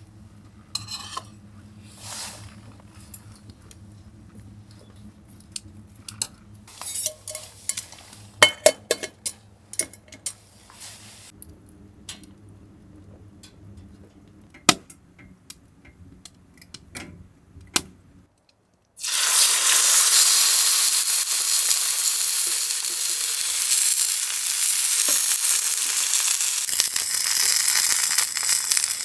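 Scattered clicks and clinks of cooking utensils, then, after a short break about two-thirds of the way through, food sizzling loudly and steadily in a hot pan.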